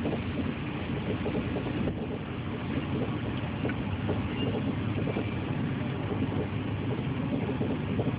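Steady low rumble of a Chinese D-train (high-speed electric train) running at speed, heard from inside the carriage.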